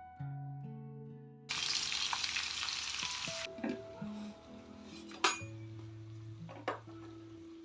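Food sizzling loudly in a hot pan for about two seconds, cutting off abruptly. Two sharp clinks of a utensil against the pan follow.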